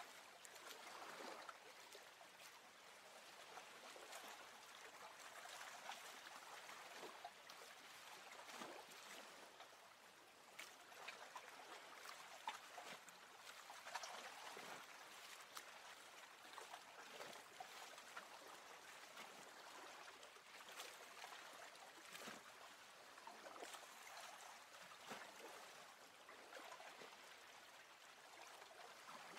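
Soft lake water lapping and trickling, with many small irregular drips and splashes.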